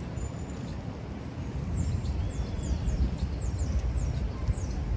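Birds chirping: a quick series of short, high chirps falling in pitch, starting about two seconds in, over a low steady rumble of city street ambience.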